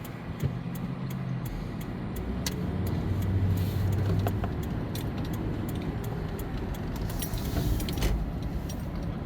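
Car driving, its engine and tyre noise steady as heard from inside the cabin, with light clicks and rattles throughout.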